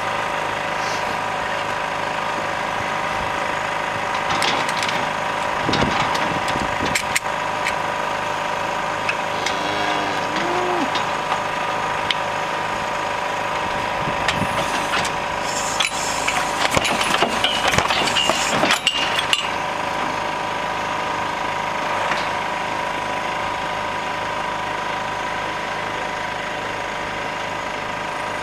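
Engine driving the hydraulics of a truck-mounted cattle hoof-trimming crush, running steadily. Metal clanks and rattles from the crush come in a cluster about midway.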